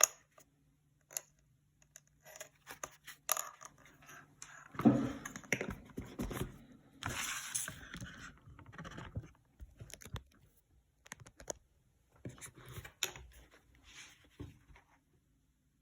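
Irregular scraping, rustling and small clicks of packaging being handled. Loudest and busiest a few seconds in, thinning out toward the end.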